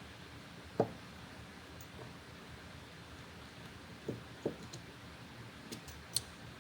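Quiet room tone with a few faint, short clicks spread through it.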